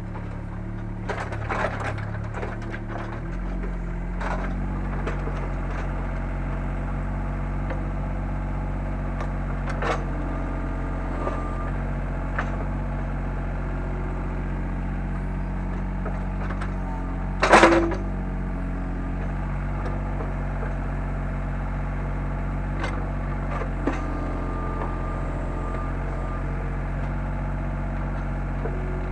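Takeuchi TB125 mini excavator's diesel engine running steadily, its note changing about three seconds in, with scattered knocks and clanks from the digging and one loud clank a little past halfway.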